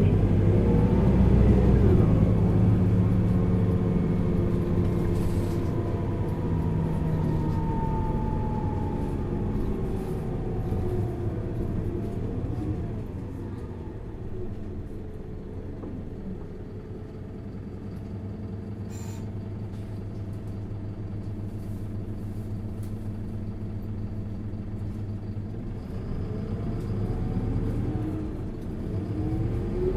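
Isuzu Erga LV290N1 bus's four-cylinder diesel engine heard from on board: it pulls hard at first, then its note falls away and it runs quietly for a long stretch, before rising again near the end as the bus accelerates.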